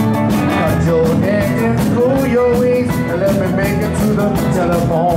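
Live band playing a rock and roll number, drums keeping a steady beat, with a voice singing over it.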